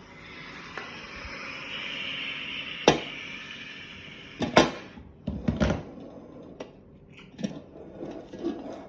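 Kitchen handling noises: a steady hiss for the first few seconds, then a sharp knock about three seconds in and several clattering knocks and thuds, with lighter clicks near the end.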